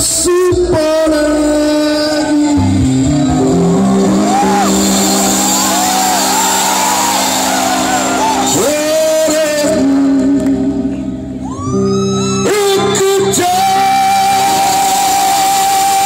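Rock band playing live with a singer's voice, loud and continuous. A bass line steps down about three seconds in, and a long note is held from a little past the three-quarter mark.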